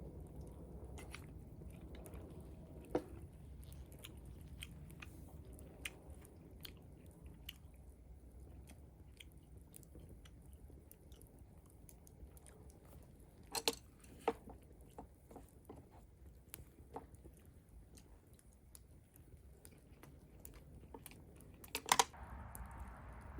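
A person chewing and eating food close to the microphone, with many small scattered clicks and a few sharper knocks, two together past the middle and the loudest near the end, over a low steady rumble.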